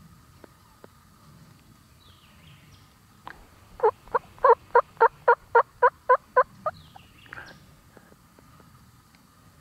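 A run of about eleven turkey yelps, evenly spaced at about four a second, loudest in the middle of the series.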